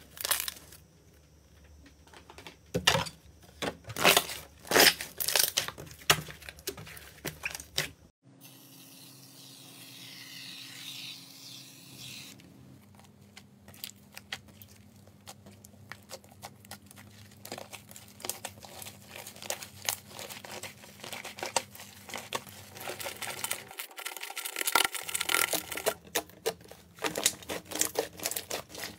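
Slime being played with by hand: separate sharp pops and squelches as glittery slime is pressed through a wire mesh. Then a few seconds of steady hiss, then dense crackling and tearing as white foam-like slime is pulled apart and kneaded.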